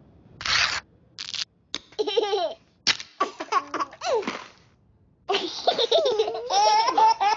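Babies giggling and laughing in bouts of high, bending squeals, after two short breathy hissing bursts near the start.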